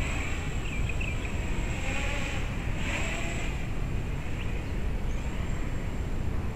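Wind rumbling on the microphone, over the thin, wavering whine of a small quadcopter's motors and 6-inch three-blade propellers as it flies off, rising and falling with the throttle.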